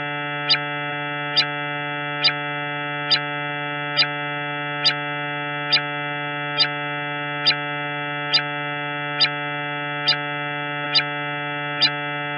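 Steady electronic drone with many held overtones, with a sharp click a little more often than once a second, like a slow steady pulse.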